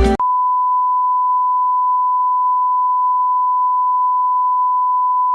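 Background music cuts off at once, then a single steady electronic beep at about 1 kHz, one pure unchanging tone like a test tone, holds at an even level.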